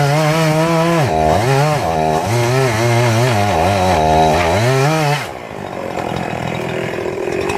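Two-stroke chainsaw cutting through a dead tree under load, its engine pitch wavering and dipping twice as the chain bites, then easing off about five seconds in to a quieter, steady running.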